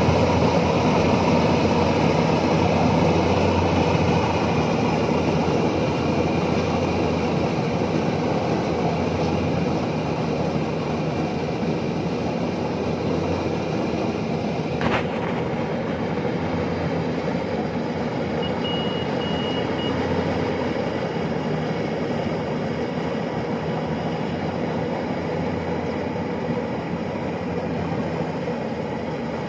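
Iseki combine harvester running steadily while harvesting rice in a flooded paddy, with a single sharp click about halfway and a brief series of high electronic beeps a few seconds later.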